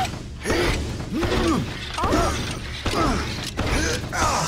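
Cartoon suspension-spring creaks of a bouncing truck: a squeaky creak that rises and falls in pitch, repeated about five times, roughly once a second, over a low rumble.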